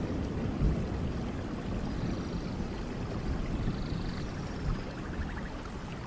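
Steady rushing noise like flowing water. A faint, rapid high trill comes in about five seconds in.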